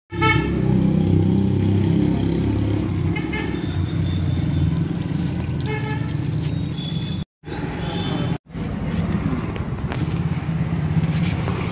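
Street traffic: motor vehicles and motorcycles running steadily, with a few short horn toots. The sound drops out abruptly twice in the second half.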